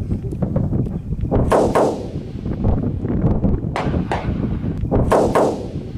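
Gunfire: single shots in pairs, two close together about a second and a half in, one near four seconds and two more just after five seconds, each trailing off in an echo, over a steady low background rumble.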